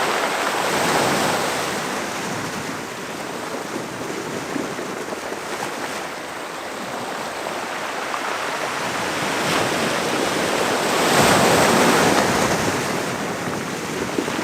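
Sea surf breaking and washing over rocks on the shore, swelling to a louder crash about eleven seconds in.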